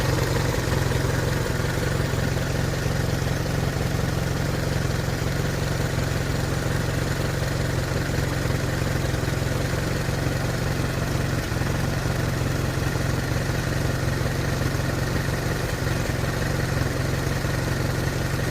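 Hotchkiss M201 jeep's four-cylinder flathead engine idling steadily, with no change in speed. It makes a noise that the owner is unsure is normal.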